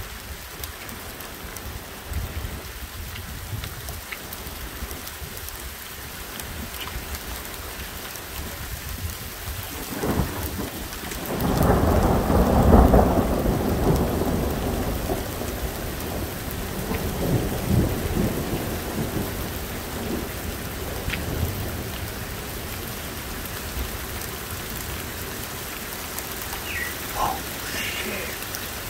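Steady rain falling, with a thunderclap about ten seconds in: it starts suddenly, is loudest for a few seconds, then rolls and rumbles in waves for about ten seconds before fading back under the rain.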